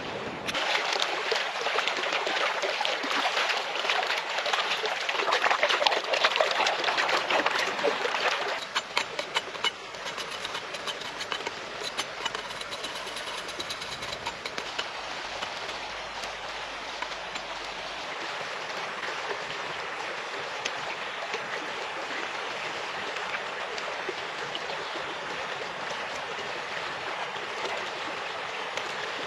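Steady rush of a flowing stream, louder and rougher for about the first eight seconds, then settling to an even wash with a few light clicks.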